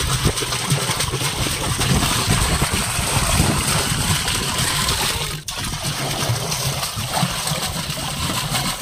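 Water pouring steadily into a drum as it is filled, with a brief break about five and a half seconds in.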